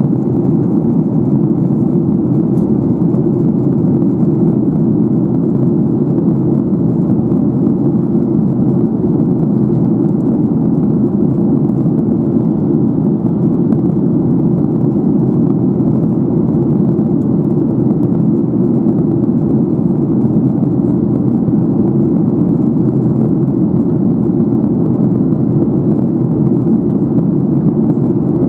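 Steady, even cabin noise inside a Boeing 737-800 in flight: the low, unbroken rumble of its CFM56 engines and the airflow over the fuselage.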